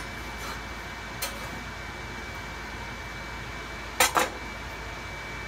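Kitchen utensils and cookware clinking at the stove: a light tap about a second in, then two sharp clinks in quick succession about four seconds in, over a steady hum with a faint high whine.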